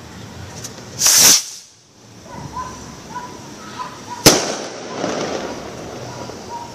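Two firework detonations: a loud blast about a second in, then a sharp bang about three seconds later with a trailing echo.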